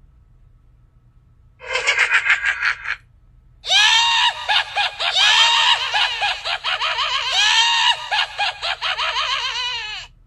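Horse whinnying: a short quavering whinny, then after a brief pause a long run of whinnies that rise and fall in pitch with a rapid flutter.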